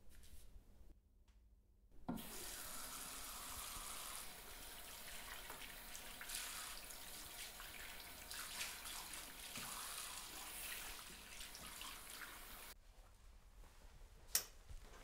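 Water running in a bathroom, a steady hiss that starts suddenly about two seconds in and cuts off abruptly near the end. A single sharp click follows.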